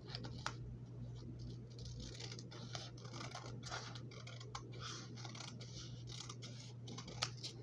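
Scissors cutting paper: a run of small, irregular clicks and scrapes.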